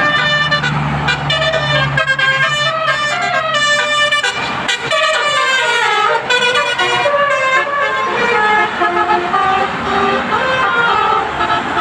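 Basuri telolet horn, a multi-trumpet musical air horn on a coach bus, playing a tune of quick, stepping notes. The bus's engine runs low underneath for the first couple of seconds.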